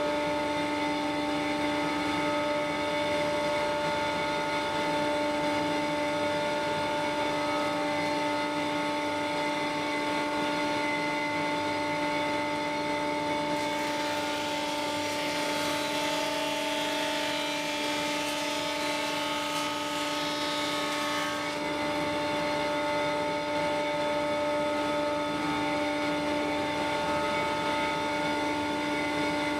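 Felder Hammer K3 sliding table saw running with a Felder dado cutter head, a steady pitched whine. From about 14 to 21 seconds in, the cutter bites through a plywood panel cutting a 6 mm dado, adding a coarse hissing cutting noise over the whine.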